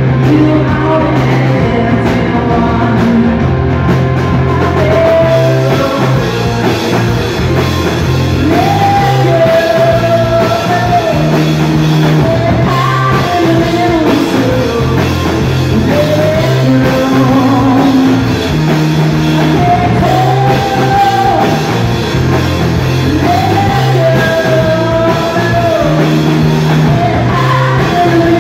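A rock band playing live, loud and heavily compressed as heard through a phone's microphone: a male voice sings over distorted electric guitar, electric bass and a drum kit.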